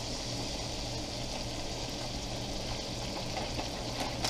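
Melted butter sizzling gently in a large pan, a steady soft hiss over a low hum.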